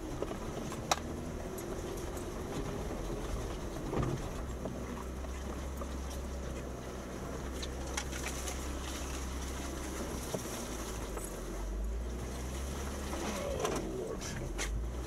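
Jeep Wrangler Unlimited Rubicon crawling over a rough trail: a steady low engine rumble with scattered sharp knocks and clicks, and a brief creak near the end.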